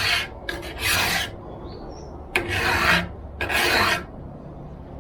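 A flat file scraping along the steel rails of a chainsaw guide bar, about five strokes in two runs with a short pause between, dressing off burrs raised by wear.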